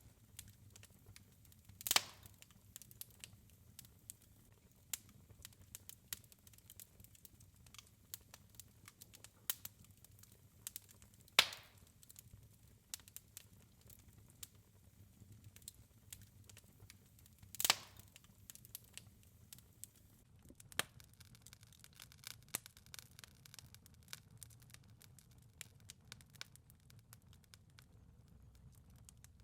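Wood fire crackling faintly in a fireplace: scattered small snaps and pops, with a few louder pops about two seconds in, near the middle and about eighteen seconds in, over a low steady rumble.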